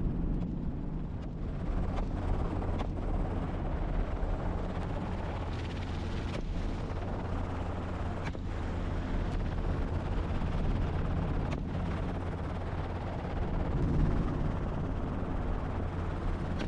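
Helicopter rotor and engine noise, a steady low drone, with a few short sharp cracks of gunfire scattered through it.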